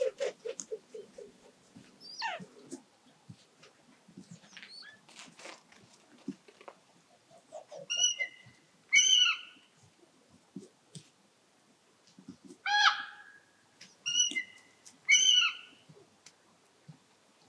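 Animal calls: a fast run of short, low calls at the start, then scattered faint calls, and later five loud, hoarse calls whose pitch bends downward, two close together near the middle and three more toward the end.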